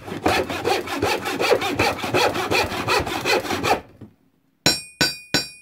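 A hand saw cutting in quick, even strokes, about four or five a second, stopping just short of four seconds in. After a brief pause come three sharp hammer blows on metal, each leaving a high ringing tone.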